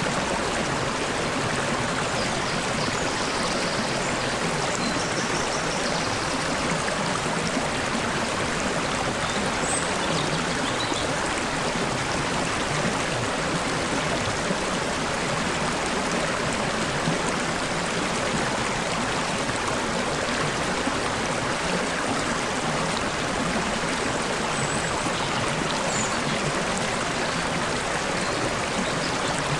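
Stream water babbling and splashing steadily over rocks, with a few faint, brief bird chirps high above it now and then.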